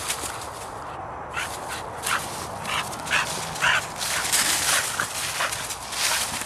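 Blue Staffordshire bull terrier giving several short barks in play, wanting a stick, while dry fallen leaves crackle under its feet.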